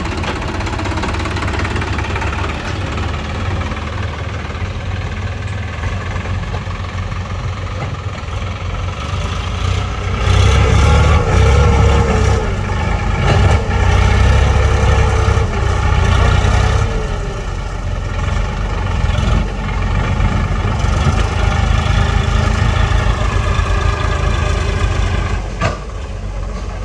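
Diesel engine of heavy machinery running steadily, growing louder with a wavering higher tone from about ten to seventeen seconds in, then settling back.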